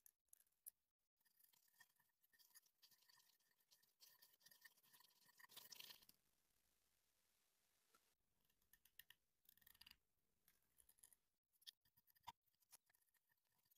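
Faint scraping and squishing of a metal palette knife working thick paint: many small, irregular scratchy strokes, with a short stretch of steady faint hiss about halfway through.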